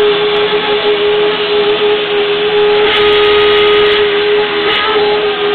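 UDM-2216 three-axis CNC machining center milling a steel mold: a steady whine over a hissing cutting noise, briefly a little louder and brighter about three seconds in.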